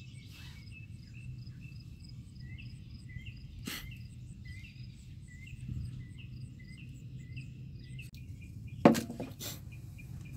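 A small bird chirping repeatedly, a few short chirps a second, over a low steady hum. A brief sharp click about four seconds in and a louder sharp knock near the end.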